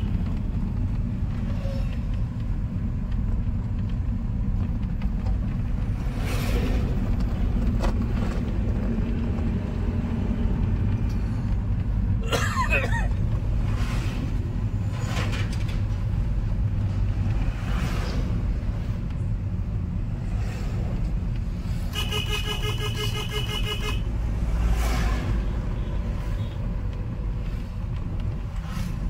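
Steady low engine and road drone heard from inside the cab of a moving vehicle, with other vehicles passing by. A horn sounds for about two seconds near the end.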